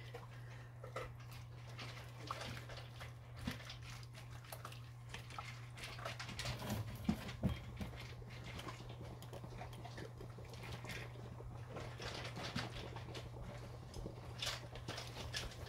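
Two dogs eating from their bowls, slopping around: irregular small clicks and smacks over a steady low hum.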